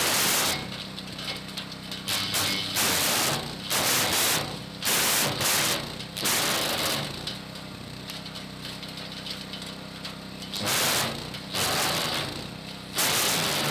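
Hecht 6208 garden branch shredder running steadily, with about eight loud crunching bursts as branches are fed in and chewed up by the cutter.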